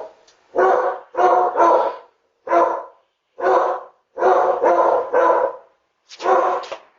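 Pet dogs barking in a run of about nine loud barks, some in quick pairs and threes, picked up by a doorbell camera's microphone.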